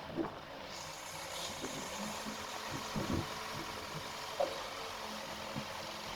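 Construction machinery engine running steadily, with a few faint knocks, a bit after three seconds and at about four and a half seconds.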